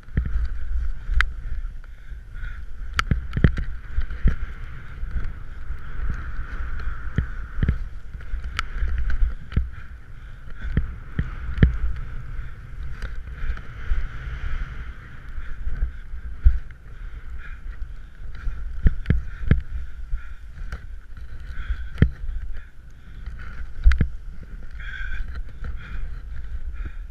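Wind rumbling on the microphone over a steady hiss, with scattered sharp knocks and clicks throughout.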